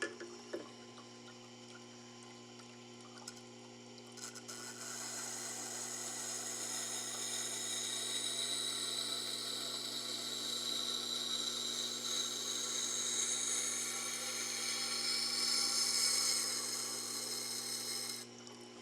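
Tormek T-8 sharpener humming steadily. From about four seconds in, an Elmax steel knife blade is ground against the coarse CBN wheel with a steady, rising hiss that stops abruptly near the end; this is the edge being worked to raise a burr.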